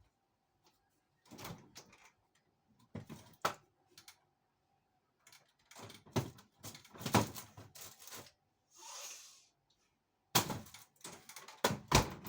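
Kitchen doors and drawers being opened and shut and things handled while an ingredient is fetched: scattered knocks and clatters in several clusters, with a short rustling hiss about nine seconds in.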